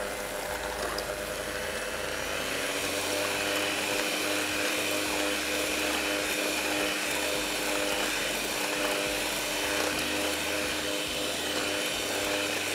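Electric mixer motor running steadily with an even whine, beating a cake batter of eggs, oil, milk and sugar while the sugar dissolves.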